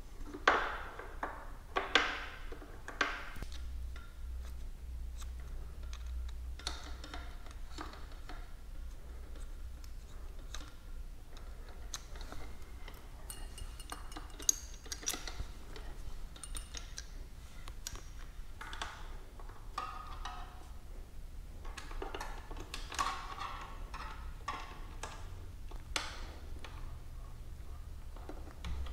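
Scattered small metallic clicks and clinks of a hydraulic disc brake caliper, its bolts and an Allen key being handled and fitted against an ebike's rear frame, with a low steady hum underneath. The sharpest knocks come in the first few seconds.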